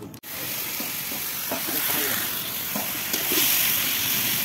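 Small shrimp frying in a black iron kadai, a steady sizzle that cuts in suddenly about a quarter second in.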